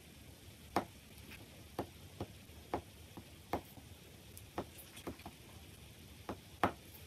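Mungyo soft oil pastel stick dabbing and scraping on paper in short strokes. About a dozen irregular soft clicks over a faint hiss.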